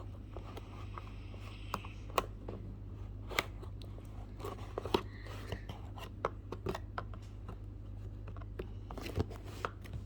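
Scissors cutting through the packaging of a cardboard game box: irregular sharp snips and clicks, with crunching as the blades work through.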